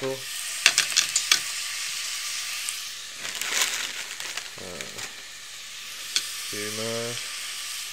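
Mushrooms, onions and frozen diced peppers frying in hot fat in a pan: a steady sizzle, with a quick run of sharp crackles about a second in as the frozen pieces hit the hot fat.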